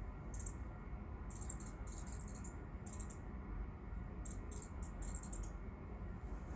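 Irregular runs of short, high-pitched clicking chirps, several clusters a second or so apart, over a steady low hum: an unidentified noise from a neighbour's shed that the listener guesses may be a pump.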